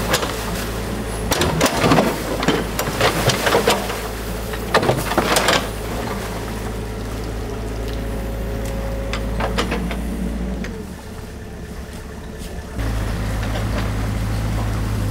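New Holland mini excavator engine running while its bucket scrapes and knocks against debris at a culvert mouth, with a run of sharp clatter in the first several seconds. It then fades to a quieter stretch, and a steady low hum takes over near the end.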